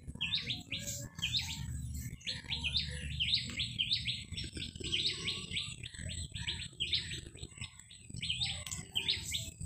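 Small birds chirping, quick short chirps repeating several times a second without a break. Underneath, a metal spatula stirs paste in a metal karai with an occasional scrape.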